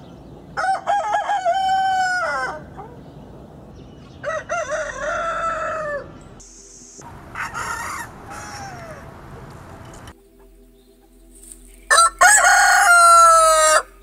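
Roosters crowing: four cock-a-doodle-doo crows, each about two seconds long, from different birds one after another. The third is fainter, and the last, near the end, is the loudest.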